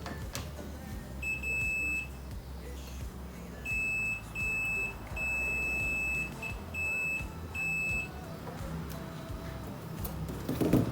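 Multimeter continuity buzzer beeping seven times at one high pitch, in beeps of uneven length as the probes make and break contact across a MOSFET's pins. The beeping points to a shorted MOSFET, which the technician takes for burnt.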